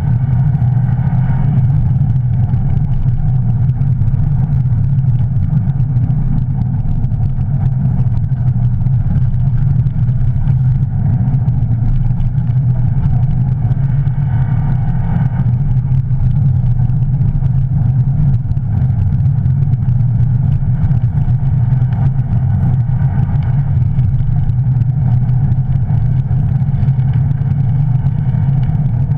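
Rally car's engine and drivetrain running hard and steadily, heard from inside the stripped cabin, with the noise of studded tyres on ice and snow underneath.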